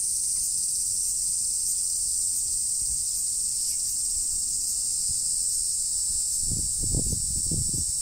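Steady high-pitched chirring of an outdoor insect chorus. A few short, muffled low bumps about six and a half to seven and a half seconds in.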